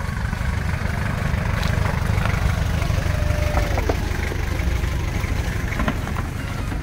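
Off-road 4x4's engine rumbling steadily at low revs as the vehicle crawls past at walking pace.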